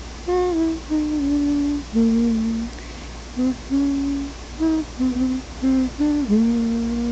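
A woman humming a slow, gentle lullaby melody, a string of short held notes that settles onto a long held note about six seconds in.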